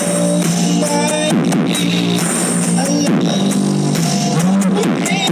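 Loud music played through a towering stack of mobile-disco speaker cabinets and horns.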